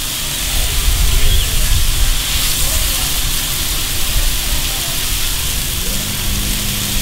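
Ground-beef burger patties and butter-fried onions sizzling on a Cuisinart 360 flat-top griddle, a steady frying hiss as the patties are pressed down with a spatula.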